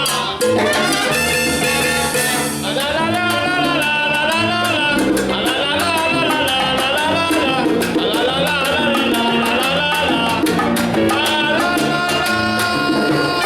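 Live salsa band playing, with singing, trumpets and a steady percussion groove.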